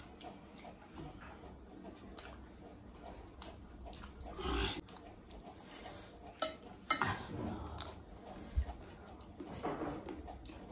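Metal spoons clicking against glass plates at irregular moments, with close mouth sounds of chewing a crisp puffed-rice snack mix (chatpat).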